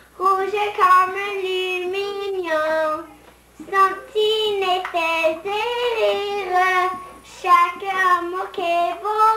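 A young girl singing unaccompanied, in sustained notes grouped into phrases with short breaks between them.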